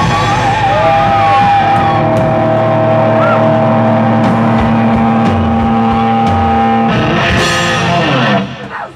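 Live metal band ending a song: distorted electric guitars and bass holding long ringing notes, with scattered drum hits and a cymbal crash about seven seconds in, then the band stops near the end.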